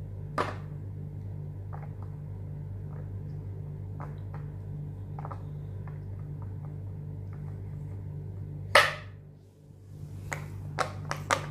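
Silicone pop-it fidget toy being pressed, its bubbles popping with small clicks about a second apart, then a quicker run of pops near the end. One much louder snap about nine seconds in, over a steady low hum.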